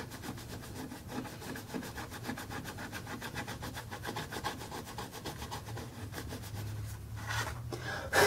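A scratch-off card being scratched, many quick back-and-forth scraping strokes, with a louder scrape near the end.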